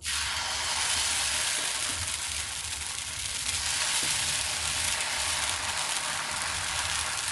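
Food sizzling steadily in a hot pan, a dense even hiss with a faint low hum underneath; it starts and stops abruptly.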